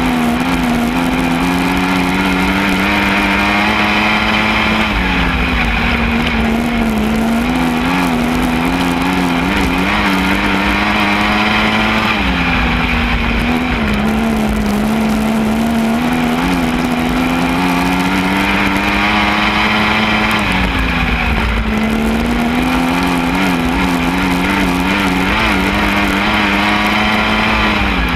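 Lightning sprint race car engine running hard while lapping the track. Its pitch climbs slowly along each straight and dips sharply into each turn, about every seven to eight seconds.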